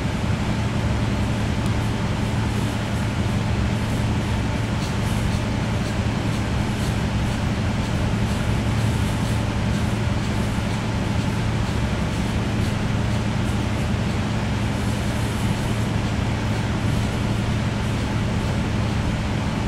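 Steady low electrical hum with a hiss under it, unchanging throughout.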